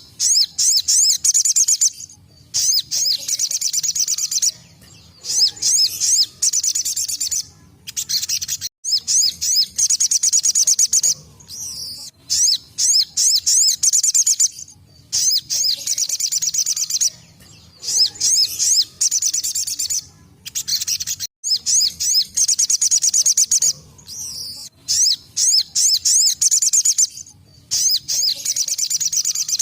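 Sogon (sogok ontong), a spiderhunter, singing its fast, high-pitched 'tembakan' burst song: rapid chattering runs of notes about two seconds long, repeated every few seconds with short pauses in between.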